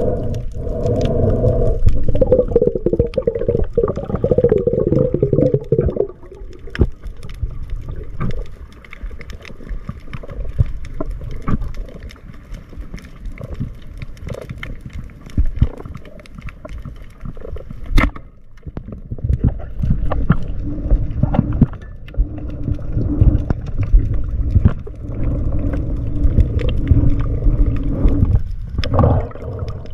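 Underwater sound through a camera housing: a muffled low rumbling and gurgling of water moving past the camera, with many scattered sharp clicks and one louder click about 18 seconds in.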